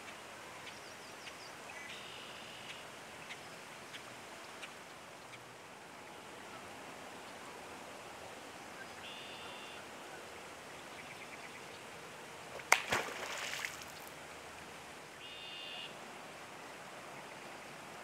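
Pond and wetland ambience: a steady outdoor hiss with three short calls from birds. About two-thirds of the way through comes one sudden loud splash.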